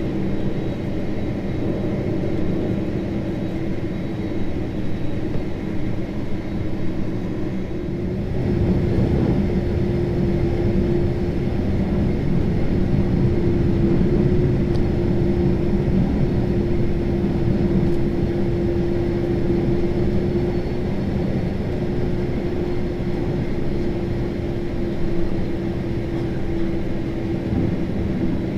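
Boeing 767-300ER taxiing, heard from inside the cabin: a steady engine rumble with a low hum that grows louder and clearer about eight seconds in.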